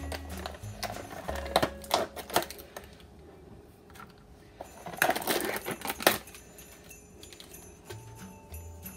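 Irregular clicks and taps of a plastic tub being handled while feta crumbles are dropped by hand into a bowl of beaten eggs, in two bunches with a quieter gap between. Background music plays underneath.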